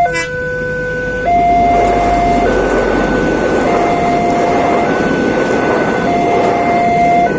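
Railway level-crossing warning siren sounding a two-tone hi-lo alarm, switching pitch about every 1.2 seconds. Under it, the rushing rumble of a train passing through the crossing swells through the middle.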